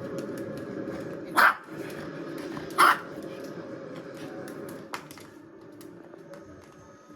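A pet dog barking twice, two short sharp barks about a second and a half apart.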